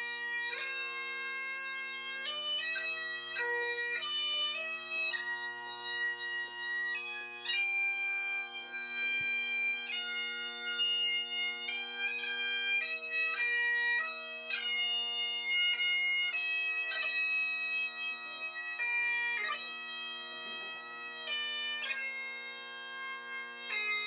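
Bagpipes playing a slow tune: the chanter moves between held melody notes over steady, unbroken drones.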